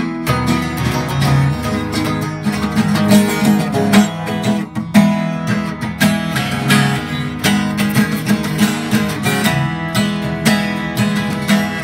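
Flattop acoustic guitar being strummed and picked in a steady rhythm, with chords changing as it goes.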